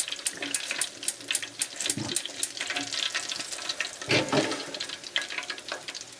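Chicken wings deep-frying in hot oil: a steady sizzle with many rapid crackles and pops.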